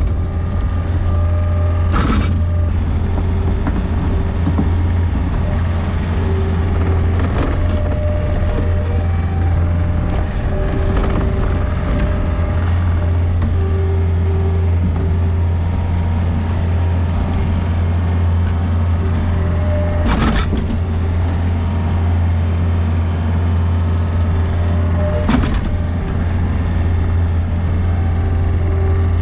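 Gehl RT65 tracked skid steer's diesel engine running steadily while it plows snow, with a few sharp knocks or clunks from the machine.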